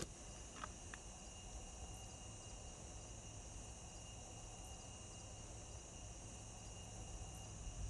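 Faint, steady outdoor ambience of insects chirring, probably crickets, with two small clicks about a second in.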